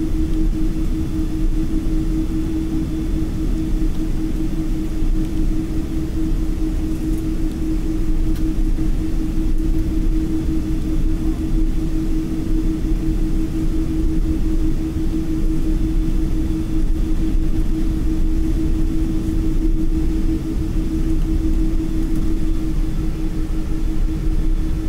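Cabin noise of a taxiing airliner: a steady low rumble of the engines with a constant hum.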